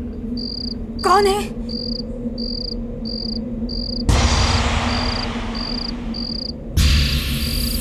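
Night-time cricket chirping, short regular chirps about two a second, over a steady low hum. A brief wavering tone sounds about a second in, then a sudden swelling whoosh about four seconds in that fades away, and another sudden hit near the end: horror-drama sound effects.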